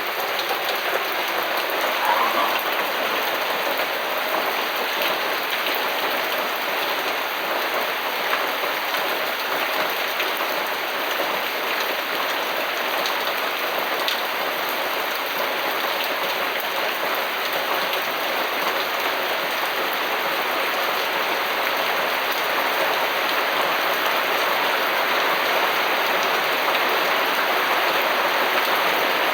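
Steady rain falling, a dense even hiss that grows slightly louder near the end.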